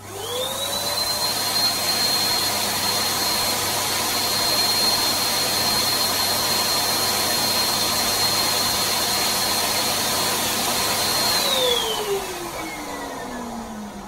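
Electric balloon pump switched on, running steadily with a high whine and a rush of air as it inflates a clear latex balloon through its hose. About eleven seconds in it switches off and the motor winds down with a falling whine.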